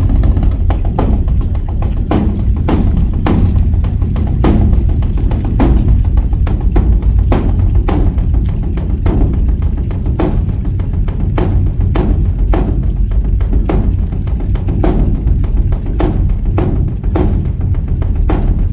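Large Korean Buddhist temple drum (beopgo, dharma drum) being beaten in an uneven run of strikes, about two a second, over a deep continuous boom.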